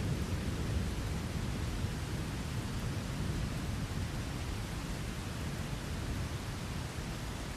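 Steady rain with a low rumble of thunder underneath, the rumble easing off slightly toward the end.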